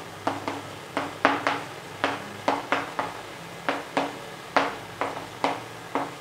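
Chalk tapping and scraping on a chalkboard as handwriting is written: a quick, irregular series of short sharp strokes, about three a second.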